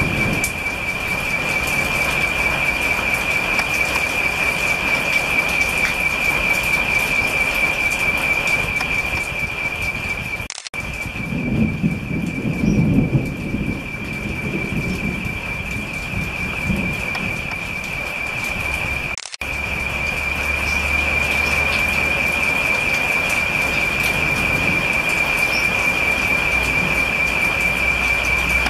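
Heavy rain pouring down on trees and foliage, with a steady high-pitched insect trill over it. For several seconds in the middle the trill is gone and a low rumble rises and fades.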